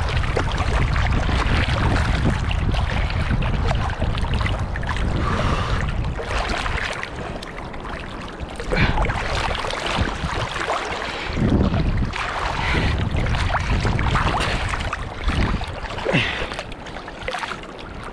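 Arm strokes of a swimmer splashing through choppy seawater, with lapping waves and a heavy low rumble of water and wind on the microphone over the first half.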